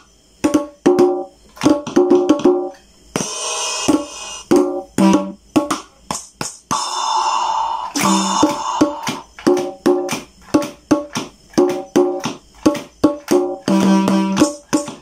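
Electronic drum pad playing its kit 5 sounds through its built-in speaker as the pads are struck: a quick run of short, pitched drum hits broken by a few longer, ringing hits.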